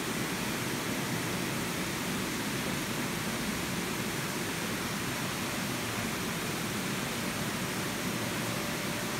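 Steady, even hiss of an indoor swimming pool hall's background noise, with no change throughout.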